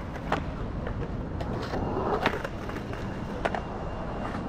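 Skateboard wheels rolling on rough asphalt, broken by several sharp clacks as the board hits the curb and the deck slides along the waxed curb edge in slappy nose slides.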